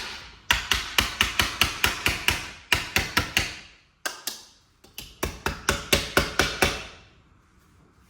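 Hammer beating a piece of sheet metal into shape, in two quick runs of rapid, ringing blows, about four or five a second, stopping about seven seconds in.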